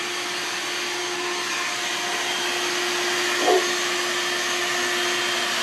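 A motor-driven vacuum, most likely a bee vacuum used to collect the swarm, running steadily with a constant hum and airy rush. A brief short rising sound cuts in about three and a half seconds in.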